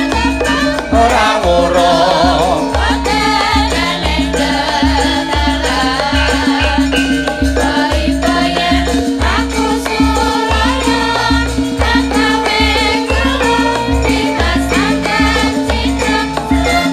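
Javanese gamelan ensemble playing, with bronze metallophones and gongs over a steady low drum beat, while male and female singers (sindhen) sing a wavering melody over it.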